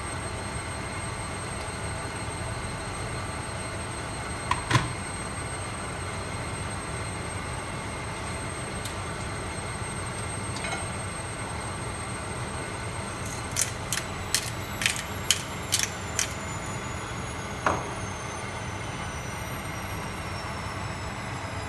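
A steady low hum runs throughout, broken by a few sharp clicks. There are two about a quarter of the way in, a quick run of about seven around two-thirds through, and one more shortly after.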